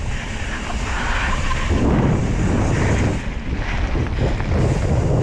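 Enduro mountain bike running fast down a loose dirt-and-gravel trail: wind buffets the action camera's microphone in a heavy, uneven rumble over the noise of the tyres rolling on the trail. The rumble grows louder about two seconds in as speed builds.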